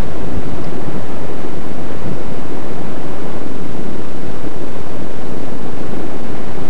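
Wind buffeting the microphone: a loud, steady rumbling rush with no clear motor tone.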